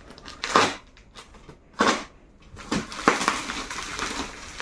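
Brown paper and packing-tape wrapping of a parcel being torn open by hand: several sharp rips, then continuous crinkling and rustling as the wrap is pulled apart.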